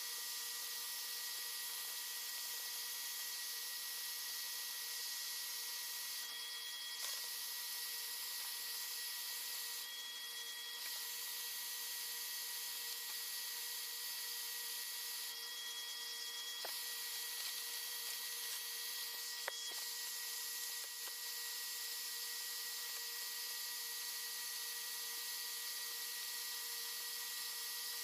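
Electric heat gun running steadily, an airy fan hiss over a constant motor hum, blowing hot air to soften vinyl wrap. The hiss changes briefly a few times, as the gun is moved.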